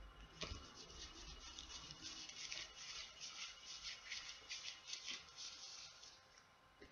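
Smartphone being wiped clean, a rapid series of faint rubbing strokes at about three or four a second that stop near the end.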